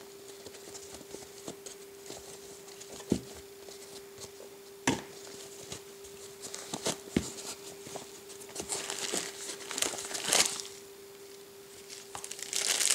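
Packaging crinkling and rustling, with scattered clicks and taps, as a fisheye lens is unwrapped and handled. The crinkling gets denser toward the end. A steady faint hum runs underneath.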